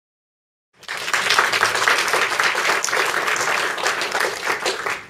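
Audience applauding, coming in suddenly about a second in and cutting off shortly before the end.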